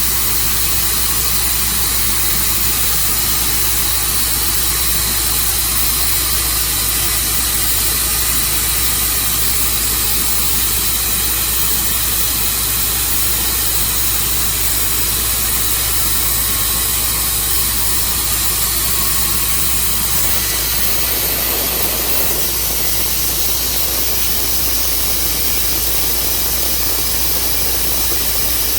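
Tru Cut sawmill running steadily: a loud, even engine-and-saw noise with a strong hiss. The sound thickens about two-thirds of the way through.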